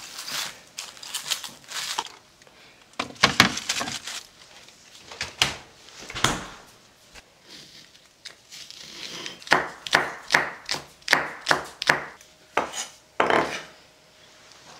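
Plastic cling film crinkling as it is stretched over a glass bowl, then a kitchen knife chopping green onion on a wooden cutting board: scattered strokes at first, then a quick run of about three chops a second in the second half.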